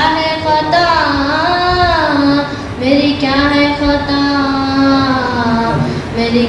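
A boy's solo voice chanting a religious recitation, drawing out long notes that bend up and down, with a short break for breath about three seconds in.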